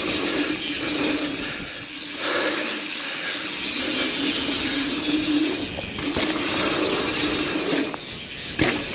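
Yeti SB150 mountain bike's rear freehub buzzing steadily while coasting downhill, over tyre noise on a dirt trail, with a couple of sharp clacks near the end.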